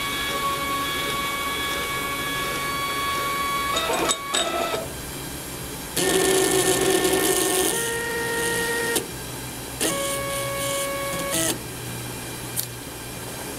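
Arduino-driven stepper-motor power feed on a mini mill whining as it jogs the table, in several runs at different speeds. A steady whine holds for about four seconds, then there are a few short blips. A louder, faster run follows that changes pitch partway, then another short run and a click near the end.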